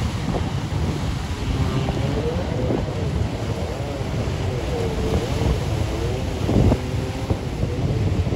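Jet ski engine out on the sea, its pitch rising and falling repeatedly as the rider throttles and turns, under heavy wind buffeting on the microphone. A single thump about three quarters of the way through.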